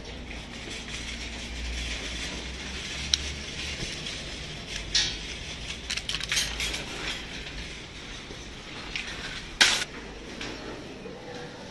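Metal wire shopping trolley clinking and rattling as its coin-lock chain is unhooked and the trolley is pulled free of the row, with several sharp metallic clacks, the loudest near the end, over a steady low rumble.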